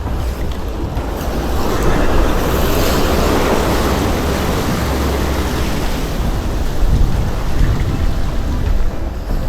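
Sea waves surging and breaking against a rocky shore, one large wash swelling up a couple of seconds in and slowly easing off, with wind rumbling on the microphone.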